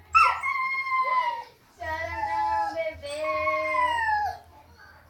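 A dog howling in long, drawn-out wails that slide slowly down in pitch: a short howl, then two longer ones, dying away near the end.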